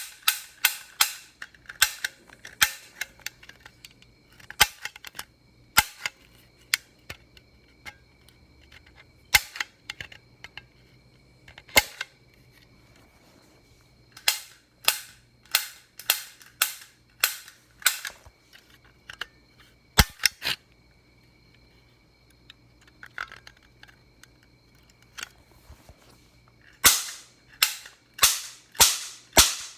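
Toy cap gun firing paper roll caps: sharp pops, some in quick strings of several shots a second, others single with pauses between.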